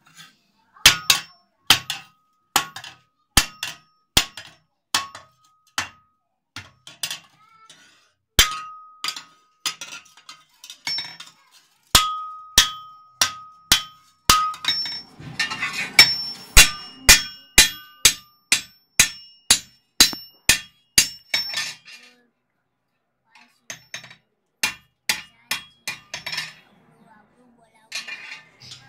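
Hand-hammer blows on red-hot metal being forged into a dundun bell on a small anvil, each strike sharp with a short metallic ring. The blows come spaced out at first, then in a fast run of about two to three a second. After a short pause, lighter strikes follow.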